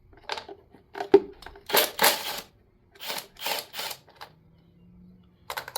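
Ratchet wrench clicking in several short bursts while loosening 10 mm bolts, with a sharp metal click about a second in.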